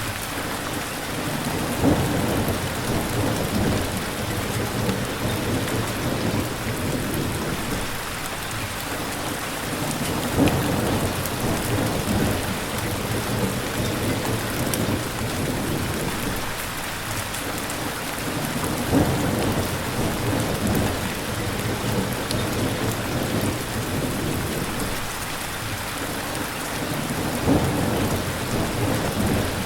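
Steady rain. A low rumble, likely thunder, swells up four times at about eight-second intervals.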